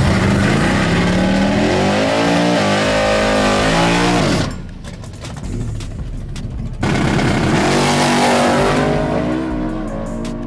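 A Ford Mustang drag car launching hard off the line, its engine revving up and climbing in pitch as the tyres spin in smoke. The sound drops off abruptly about four and a half seconds in, returns loud and climbing again about seven seconds in, then fades as the car pulls away.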